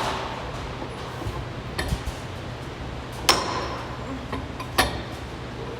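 A few sharp metal clanks, about four, each with a brief ring; the loudest comes about three seconds in, over a steady low hum.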